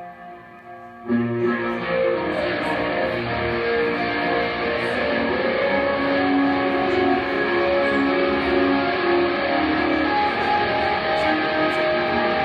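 Solo Telecaster-style electric guitar: a quiet ringing note fades, then about a second in the guitar comes in loud with a dense, sustained wash of notes that carries on.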